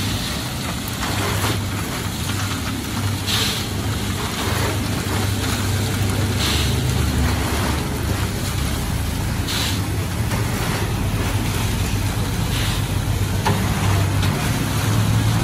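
Peanut roasting machine running with a steady low motor drone while roasted peanuts pour rattling out of its drum into a metal tray. A sharper rasp comes about every three seconds as a metal scoop scrapes peanuts out of the tray.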